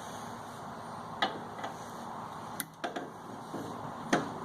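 A few sharp clicks and knocks at irregular intervals, about six in all, over a low steady background: the sound of handling tools and metal parts.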